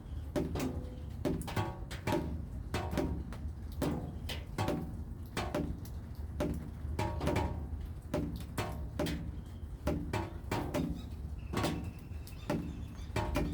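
Raindrops dripping onto a resonant surface, each drop a short pitched plink, two or three a second at an uneven rhythm, over a steady low rumble.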